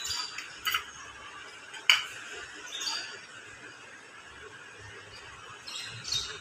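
A dog crunching crumbs of namkeen, a dry fried snack, picked up off a tiled floor: a few separate short crunches and clicks, the sharpest about two seconds in.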